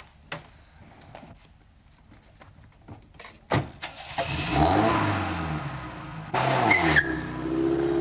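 A few faint clicks, then a sharp thump about three and a half seconds in, and a car engine starting up and revving, its pitch rising and falling.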